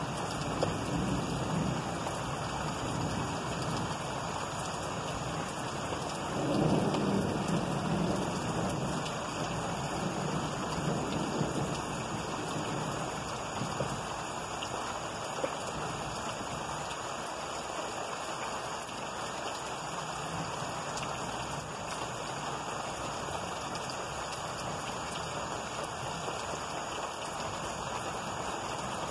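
Steady rain falling during a thunderstorm, with thunder rumbling under it; the loudest roll swells about six seconds in and dies away over a few seconds.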